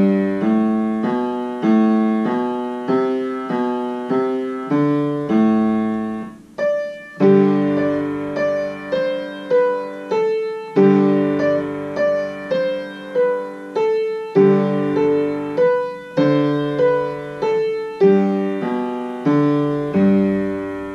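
Kawai piano playing a slow, simple two-hand solo piece, single notes over a bass line at about one or two a second. There is a short pause about six seconds in, and the last notes ring and fade near the end.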